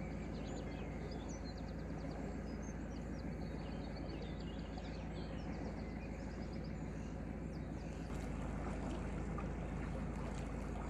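A narrowboat's engine running steadily under way, a low even hum that gets a little louder about eight seconds in, with birds chirping.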